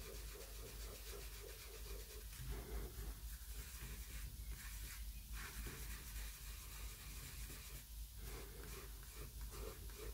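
Faint, irregular scratching and rubbing of a soft pastel stick on paper.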